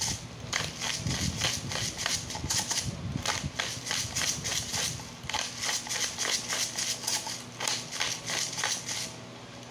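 Twist-top bottle pepper grinder being turned hard over a bowl: rapid crunching clicks of peppercorns being cracked, several a second, with a brief pause near the end.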